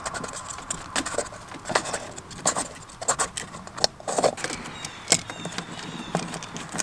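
Irregular metallic clicks and clinks of hand tools and fittings being handled under the hood while the stock fuel filter housing on a 24-valve Cummins is being disconnected.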